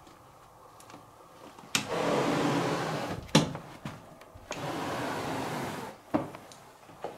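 A door's lever-handle latch clicks, then a loud rushing hiss lasts about a second and a half and ends in a sharp knock. A second stretch of hiss follows, with a couple of lighter clicks near the end.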